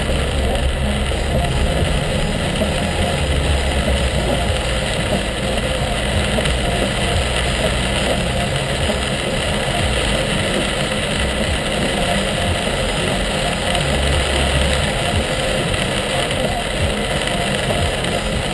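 Steady noise inside a car driving through heavy rain: rain beating on the roof and windshield over the engine and the hiss of tyres on the wet road, with a deep rumble underneath.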